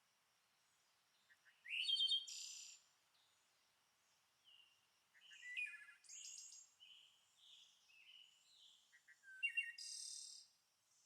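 Cockatoo calling in short bouts of high squawks and chirps, three main bursts with quieter chatter between.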